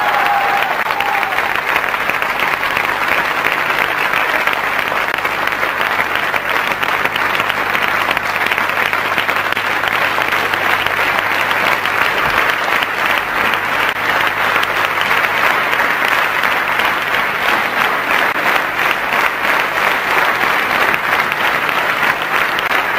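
Long, steady applause from a large crowd of people clapping, dense and unbroken.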